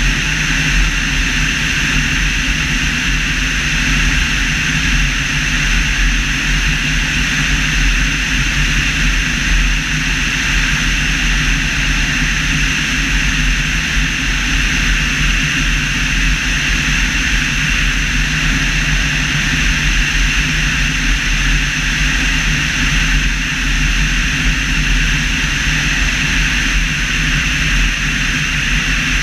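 Steady in-flight noise of an Evektor EV-97 Eurostar light aircraft, heard from a camera on its tail: rushing airflow with a low drone underneath.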